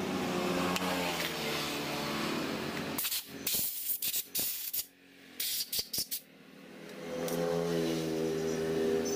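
Short bursts of aerosol carburettor cleaner hissing as it is sprayed onto a chainsaw carburettor, a dozen or so in quick succession in the middle. Before and after them, a motor vehicle engine hums in the background; it fades out in the first few seconds and rises again near the end.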